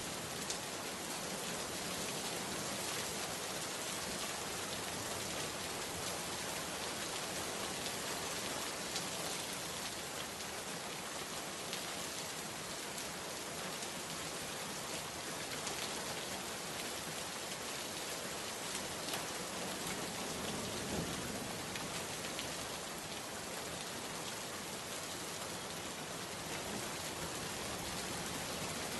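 Steady rain falling on a surface, a dense even hiss with many small drop ticks.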